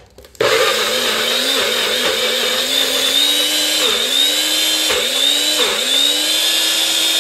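NutriBullet blender motor starting about half a second in and running at high speed through a thick avocado sauce, its steady whine dipping briefly and recovering several times.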